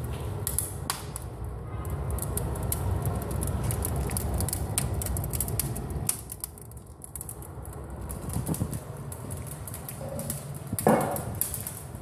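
Wood fire burning in a newly built fireplace: frequent sharp crackles and pops over a steady low rumble of the flames. A brief, louder pitched sound stands out near the end.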